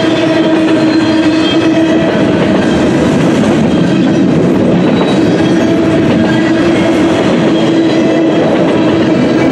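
Double-stack container well cars of a long intermodal freight train rolling past: a loud, steady rumble of steel wheels on rail, with a steady hum running through it.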